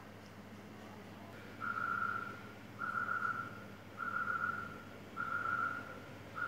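A steady high whistle-like tone that sounds for under a second and repeats about once a second, five times, beginning about one and a half seconds in, over a faint steady low hum.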